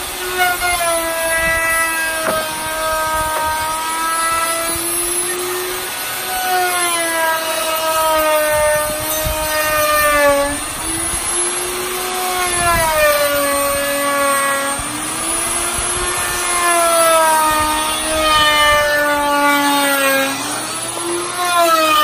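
Handheld electric router running as it cuts along a wooden rail: a loud, steady motor whine whose pitch sags as the bit bites into the wood and climbs back as it frees up, several times over.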